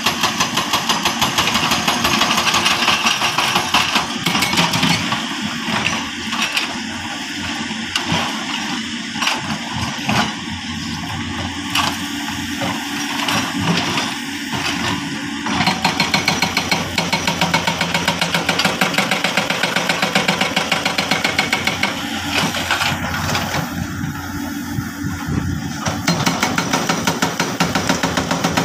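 Heavy diesel engines of construction machinery, an excavator and dump trucks, running under load with a fast, even pulsing beat. The beat eases about four seconds in and picks up again at about 16 seconds.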